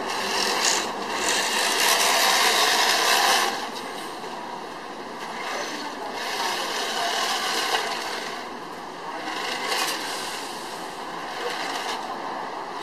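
Toy RC tank's small electric motor and plastic tracks running across concrete and tile in several spurts of driving, a rough whirring grind that is loudest near the start.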